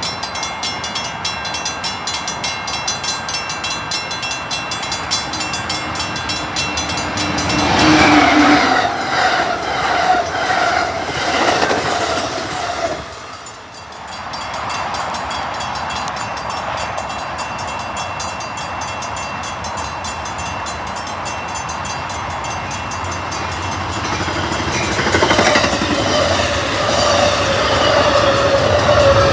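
A train passing a grade crossing, its wheels running steadily over the rails. The horn sounds about eight seconds in for several seconds, its pitch dropping as the train goes by, and a horn tone sounds again near the end.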